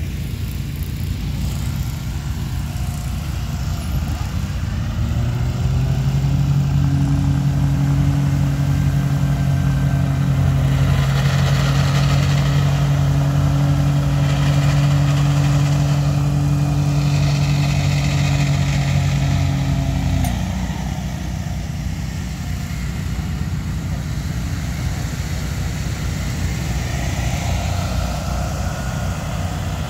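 Walker ride-on mower's engine running. About five seconds in a strong steady hum comes up and holds, then drops away abruptly about twenty seconds in.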